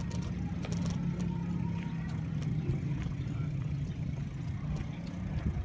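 A motor vehicle's engine running with a steady low hum, with a few small clicks over it.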